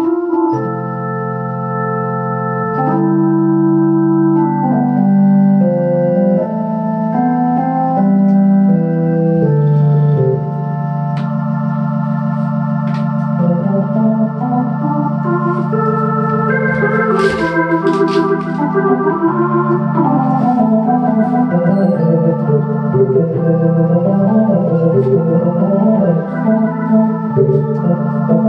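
Two-manual home electronic organ with a built-in Leslie speaker playing a hymn-style piece: sustained chords over a bass line, slow held chords at first and busier moving notes in the second half.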